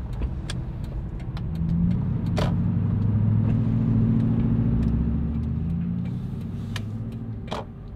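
Toyota Tundra pickup driving, heard from inside the cab: a steady low engine and road hum that shifts in pitch a few times and eases off over the second half. Scattered light clicks, the two loudest about two and a half seconds in and near the end.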